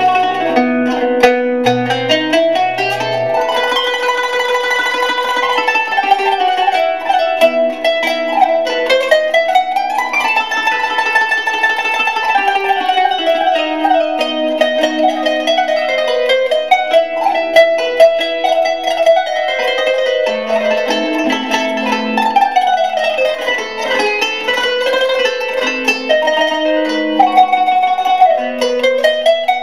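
Instrumental music led by a plucked string instrument: quick notes in a melody that climbs and falls in long sweeps.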